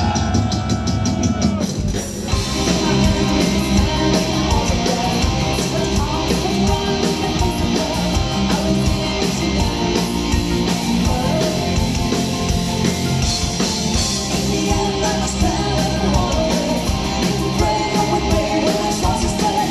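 Symphonic metal band playing live and loud: a held sung note fades away in the first second, then about two seconds in the full band drives on with distorted electric guitars, drums and vocals.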